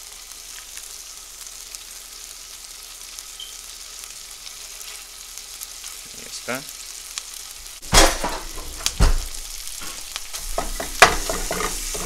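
Beef chorizo sizzling faintly in a frying pan, then from about two-thirds of the way through a wooden spatula scraping and knocking against the pan in irregular strokes as the chorizo is broken up.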